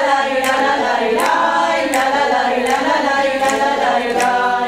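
Voices singing a Persian folk wedding song, with a sharp clap-like beat about every three-quarters of a second; the song breaks off at the very end.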